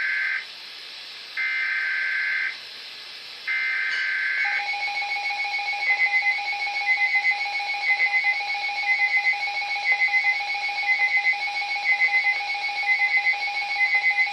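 Emergency weather-alert signal. A burst of high warbling data tone sounds three times, about a second each with a second's gap: the SAME digital header that opens a new alert. Then a steady alert tone begins, overlaid by rapid beeping that pulses in groups about once a second.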